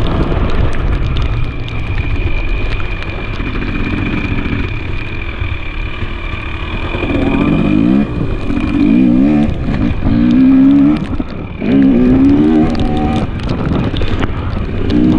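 2023 KTM 300 XC's two-stroke single-cylinder engine running under load on a dirt trail, fairly steady at first, then revving up in several quick rising sweeps in the second half.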